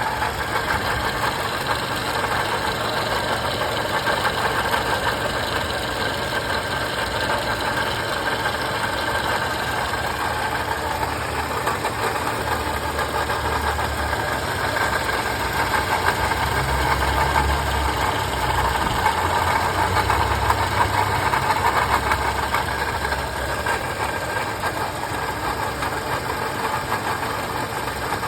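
A 2015 Toyota Camry engine idling steadily with a rattle from the engine, whose cause the owner does not know. A low hum swells somewhat in the middle and then settles.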